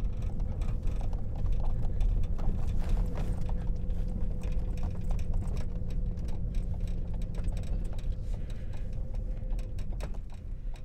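Car driving slowly over a gravel road, heard from inside the cabin: a steady low rumble of engine and tyres, with many scattered crunches and clicks of gravel under the tyres.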